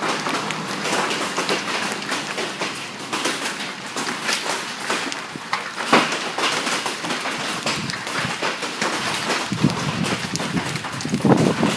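Hailstones and rain pattering against a building and the ground as a dense, steady clatter of many small impacts, with a louder burst near the end.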